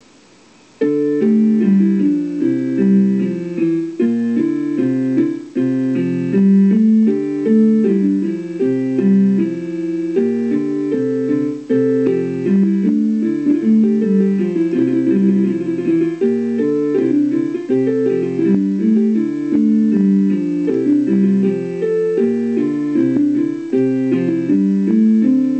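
Background music: a keyboard or electric piano playing a steady stream of notes, starting about a second in.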